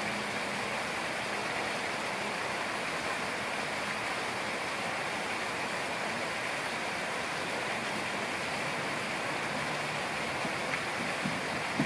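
Steady rush of water pouring from a spout and running down an artificial rock wall.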